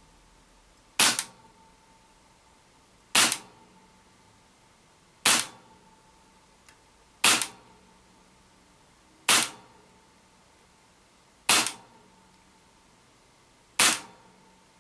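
Tokyo Marui M&P9L gas blowback airsoft pistol firing single shots, seven sharp cracks about two seconds apart, each with the slide cycling in blowback.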